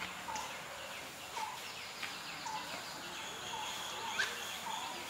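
Birds calling in outdoor ambience: one bird repeats a short note about once a second, among scattered higher chirps and a thin steady high whine.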